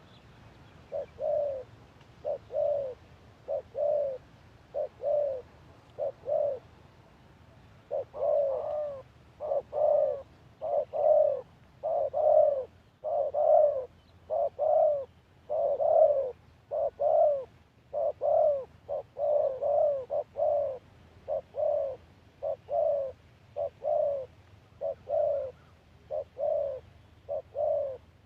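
Spotted doves cooing: a long run of low, repeated coo notes, spaced out at first, then from about eight seconds in louder and more closely packed.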